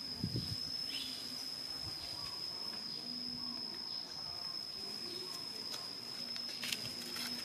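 Steady high-pitched whine of an insect, held at one pitch, over outdoor ambience with a few faint chirps; a soft thump near the start.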